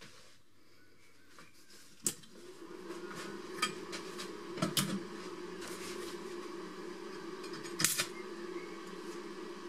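Stick (arc) welding machine humming steadily from about two seconds in, with a few sharp clicks and taps as the electrode is brought to the steel in the vice, and a brief crackle near the end as the arc strikes for a moment.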